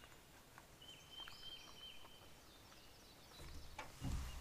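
Faint birdsong: a thin, high whistled note held for about a second, with short chirps around it. Near the end comes a low rumble as the camera is handled.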